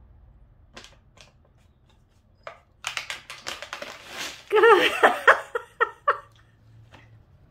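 Plastic cat-treat bag crinkling and dry treats rattling out onto a vinyl floor as a cat lifts the bag in its mouth, a dense run of crackles. About halfway through a woman bursts out laughing, the loudest sound.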